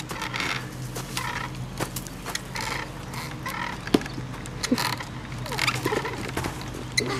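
A child making short animal-like vocal noises, repeated roughly once a second, over the scuff and crunch of shoes on gravel. There is one sharp knock about four seconds in.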